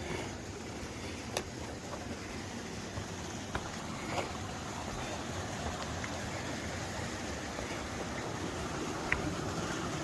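Steady rushing of a stream flowing beneath the boulders, with a few sharp clicks scattered through it.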